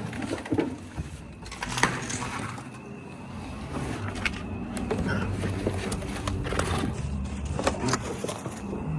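Footsteps crunching and scraping over debris, with scattered knocks and clicks, and a low rumble building in the second half.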